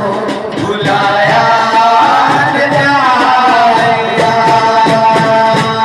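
A man singing an Urdu devotional song into a microphone, bending between notes and then holding long, wavering ones, over light percussive beats.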